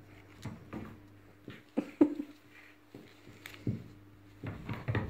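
Serval kitten playing with a wand toy on a tiled floor: a scattering of short, soft thumps and taps from paws and toy hitting the tiles, the loudest two close together about two seconds in.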